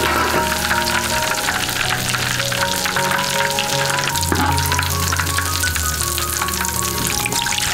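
Hot oil sizzling and crackling in a large iron wok used for deep-frying, with background music playing over it.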